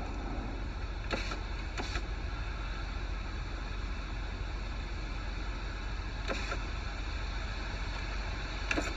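Steady low rumble and rushing noise heard from inside a car with its windows down, with a few faint, brief higher sounds.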